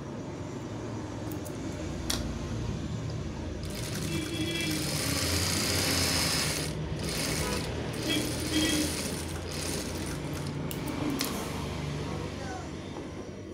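Cloth rustling as a cotton blouse piece is handled and folded at an industrial sewing machine, over a steady low hum. A sharp click comes about two seconds in and a few more near the end.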